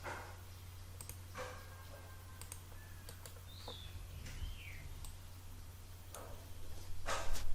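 Computer mouse clicks and a few keyboard taps, scattered and irregular, over a steady low electrical hum. A couple of short, faint bird-like chirps come in the middle, and a louder noise starts near the end.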